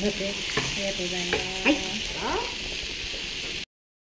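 Venison sizzling on a hot skillet over a tabletop gas burner, with a few sharp clinks from chopsticks and dishes. The sound cuts off suddenly near the end.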